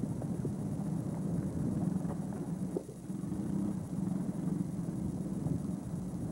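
An engine running steadily, a continuous low rumble with a slight dip about three seconds in.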